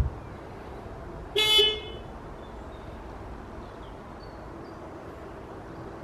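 A car horn sounds once, a short flat-pitched toot of about half a second, about one and a half seconds in, over steady low outdoor background noise.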